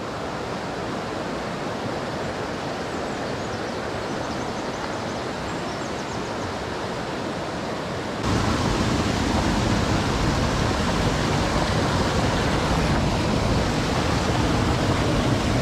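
Creek water rushing steadily over stones. It gets suddenly louder and deeper about eight seconds in.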